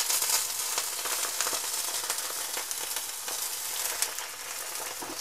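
Full-fat milk sizzling with fine crackles as it is poured into a hot frying pan over bread toasted in butter. The sizzle is strongest as the pour begins and eases a little later on.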